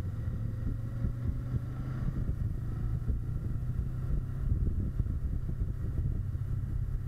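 Kawasaki Versys 650's parallel-twin engine running steadily at a cruise, heard from a camera mounted on the moving bike, with a low rumble of wind on the microphone.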